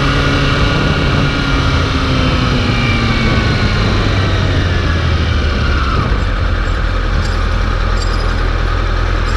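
A vehicle engine running, its pitch falling over the first few seconds as it slows, then settling into a steady low idle about six seconds in.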